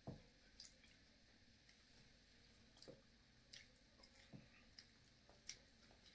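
Faint chewing of a small cheese pizza piece, with soft, scattered mouth clicks every second or so.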